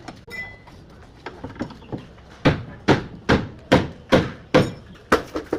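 Hammer blows on column shuttering: a few light taps, then from about two and a half seconds in a steady run of strikes, two to three a second.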